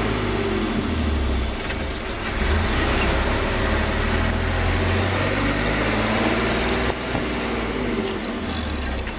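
Magirus truck engine running under way while the driver upshifts through the unsynchronised gearbox, with the engine brake applied to pull the revs down quickly between gears. The engine note shifts about two seconds in and again near the end.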